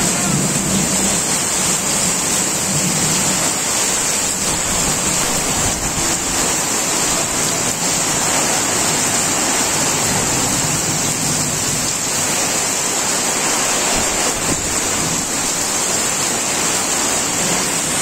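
Heavy storm rain pouring down onto corrugated tin roofs: a steady, loud rushing hiss.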